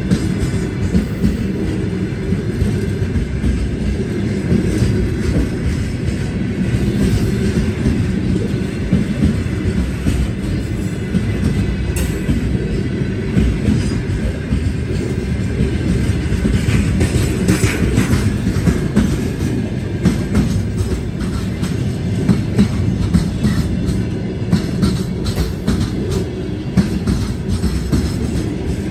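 Freight train of open-top gondola wagons rolling slowly past close by: a steady, loud rumble of steel wheels on the rails with repeated knocks from the bogies passing over the track.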